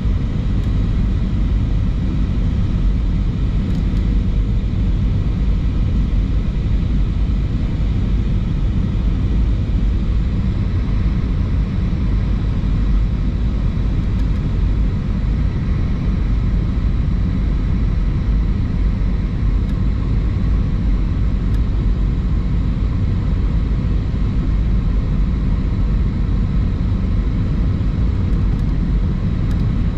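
Steady cabin noise of an Airbus A320 in flight: an even low rumble of engines and airflow, with a faint steady whine above it.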